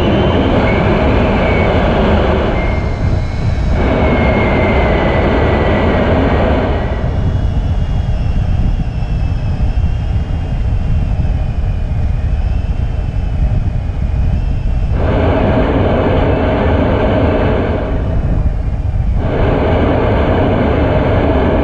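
Wind rushing over the camera on an Opterra flying wing in flight, with a thin motor-and-propeller whine that wavers in pitch. The sound thins out for several seconds in the middle, then fills back in.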